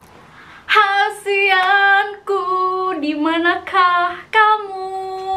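A woman singing alone, without accompaniment, in a few long held notes with short breaks between phrases. The last note is held steady near the end.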